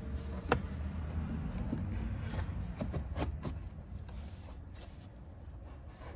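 A sharp click about half a second in, then a few lighter clicks and rubbing as a PVC door-jamb repair piece is slid and pushed into place against the threshold, over a low steady hum.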